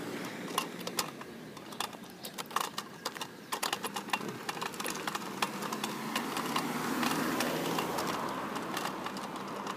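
A kick scooter rolling and rattling along a concrete sidewalk as it is walked, giving many irregular light clicks and taps, with footsteps. A faint rushing traffic sound swells in the second half.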